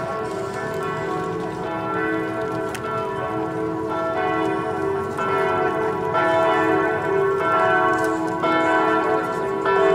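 Church bells pealing: several bells struck in turn about once a second, their tones ringing on and overlapping, growing louder about halfway through.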